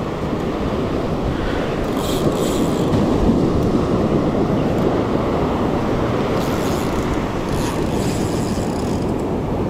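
Steady rushing of surf washing on the shore, with wind buffeting the microphone.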